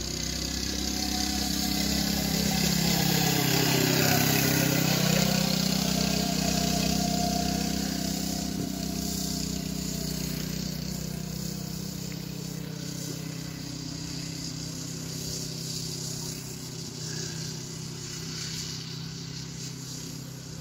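Small single-cylinder engine of an 80cc go-kart running at a steady speed. It grows louder as the kart comes closest, about four to five seconds in, then fades as it drives off.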